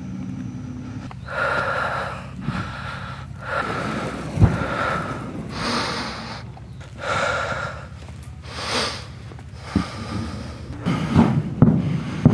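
A person breathing heavily and rhythmically close to the microphone, about one breath a second. Sharp cracks cut in: one about four and a half seconds in and several near the end.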